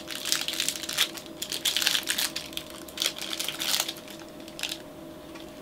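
Plastic snack wrapper crinkling and crackling as it is handled, in quick irregular rustles that die away about four seconds in.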